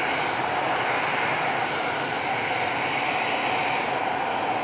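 Boeing 737-800's CFM56-7B turbofan engines at taxi power as the airliner rolls past. It is a steady rushing jet noise with faint high whistling tones, holding level throughout.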